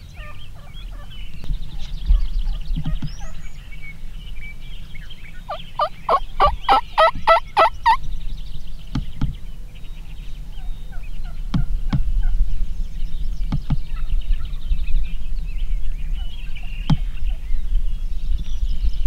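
Wild turkey gobbler gobbling once about six seconds in: a rapid rattling gobble of about ten notes lasting about two and a half seconds. Small songbirds chirp faintly throughout.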